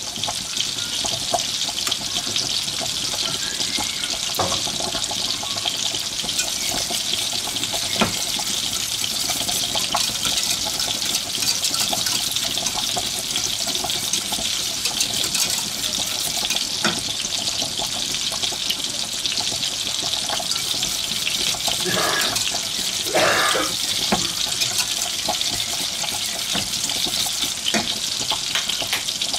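Meatballs frying in fat in a pan: a steady hissing sizzle with scattered pops and clicks.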